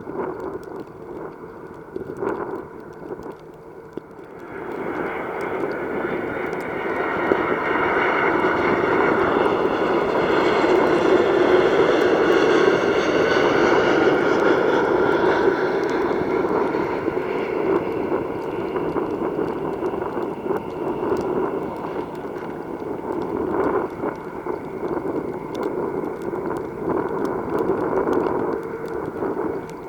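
Jet engines of an Airbus A319-100 airliner coming in to land. The engine noise swells about four seconds in and is loudest midway, with a whine that slides down in pitch as the plane passes. It then carries on as a steady rumble until it cuts off.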